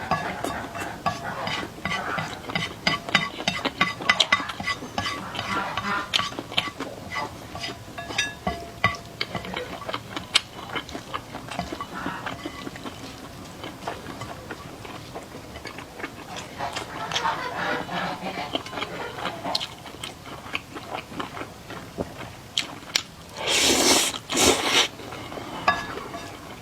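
Metal utensils clinking and scraping against a pot and dishes in many quick clicks while pasta is stirred and heated in a little broth. A short, loud rushing noise comes twice near the end.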